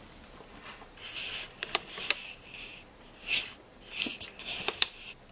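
Handling noise from a camera being checked: a few short rustles and sharp clicks, with quiet between them.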